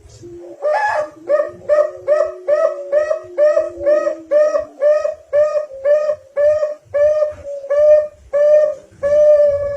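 Zebra dove (perkutut) song: a rapid series of about sixteen evenly spaced cooing notes, about two a second, that stops suddenly at the end. A lower steady tone sounds under the first half and slides down as it fades.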